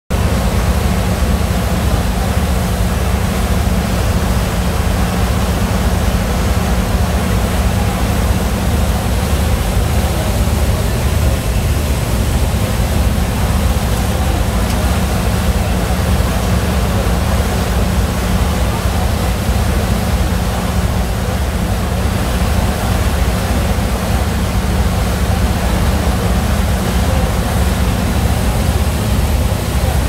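Steady, unchanging drone of a ferry's engines under a loud rushing noise of wind and churned wake water.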